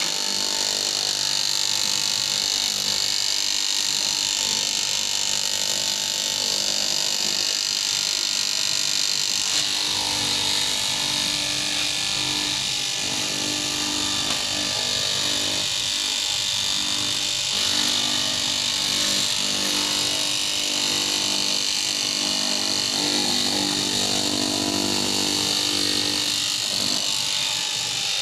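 Electric fabric-cutting machine running steadily, a constant motor whir with a bright, hissy edge.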